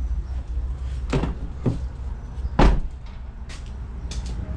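A 2014 Honda Civic's rear car door being opened and shut to check its fit: a few latch clicks and knocks, with the loudest thud about two and a half seconds in.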